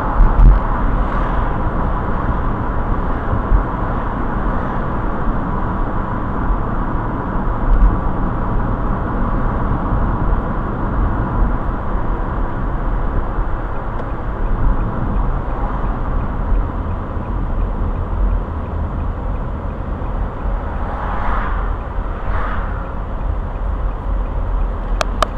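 A car's engine and tyre noise heard from inside the cabin while driving, a steady low rumble with the rush of traffic. Near the end, two brief swells of noise pass.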